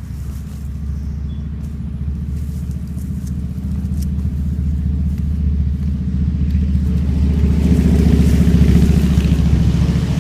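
EGO 56V cordless electric lawn mower running, its spinning blade giving a steady low hum while it cuts tall weeds. It grows louder and rougher from about two-thirds of the way in, easing off slightly near the end.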